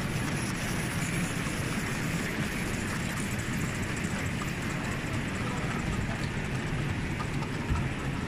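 Steady background noise of a large exhibition hall, an even low rumble with faint, indistinct voices.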